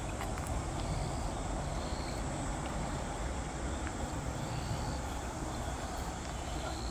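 Steady outdoor background noise: a low rumble with a few faint ticks and short faint high tones, and no bang from the bird-scaring cannon.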